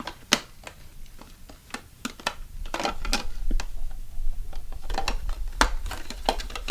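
Plastic toy car-kit parts clicking and clattering irregularly as they are handled and fitted together, with dull knocks of handling on the table.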